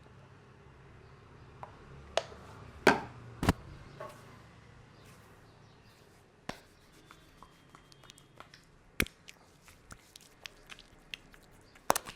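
Scattered sharp slaps and cracks from a barber's hands working a head and neck massage: a cluster of loud ones in the first few seconds, then single ones every few seconds, with fainter ticks in between.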